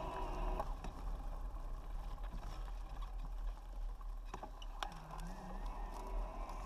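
Fat bike rolling over a dry-leaf-covered dirt trail, heard from a handlebar-mounted camera: a steady low rumble and rustle of the wide tyres, with a few sharp clicks and rattles from the bike.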